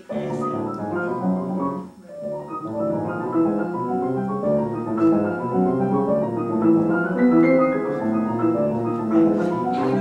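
Grand piano playing a quick passage of many overlapping notes blurred together by the sustain pedal. After a brief break about two seconds in, a second piano plays along with it.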